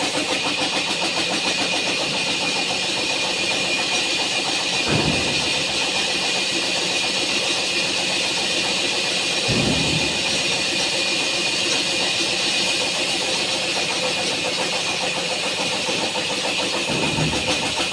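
Engine-driven wood-cutting machine running steadily with a fast, even pulse, with brief heavier sounds about five seconds in, near the middle, and near the end.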